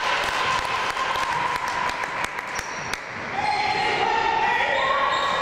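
Basketball game sounds in a gym with a hardwood floor: the ball bouncing and thudding, with scattered shouts from players and spectators and the echo of the large hall.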